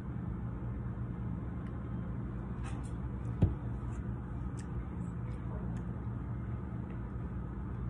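Steady low hum of room noise, with one sharp dull knock about three and a half seconds in and a few faint light clicks around it.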